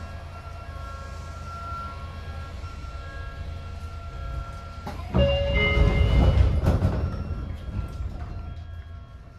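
Sotetsu 8000 series electric train running, heard from inside the car: a low rumble under several steady whining tones from its Hitachi IGBT inverter-driven traction motors. About five seconds in, a sudden loud rush of noise swells over it for about three seconds, then fades.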